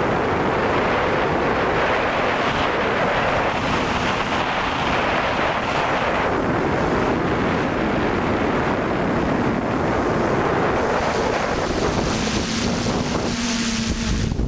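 Steady rushing noise of an FPV drone in flight: propeller wash and airflow buffeting the onboard camera's microphone. A faint low hum comes in near the end.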